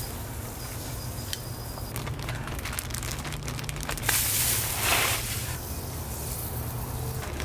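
Coffee grounds thrown onto a pile of wood chips and dry leaves, landing with a rustling patter that swells into a louder hissing rush about four seconds in.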